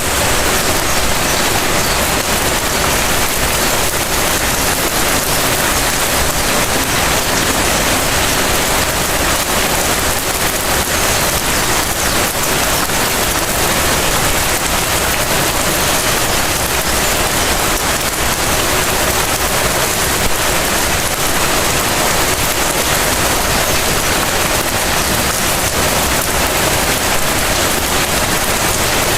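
Steady rain falling on surfaces, a dense even patter that holds constant throughout.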